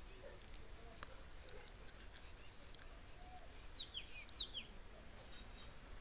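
Faint chirping of small birds: scattered short high chirps, with a quick run of falling chirps about four seconds in.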